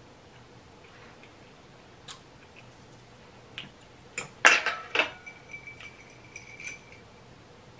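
Scattered clicks and clinks of a metal fork and a drinking glass at a table of food, loudest in a cluster about halfway through as the glass is picked up, followed by a faint high ringing for about two seconds.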